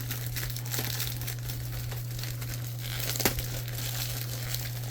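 Plastic shrink wrap crinkling and tearing as a sealed box of 1994 Action Packed football cards is opened, with a sharp snap about three seconds in, over a steady low hum.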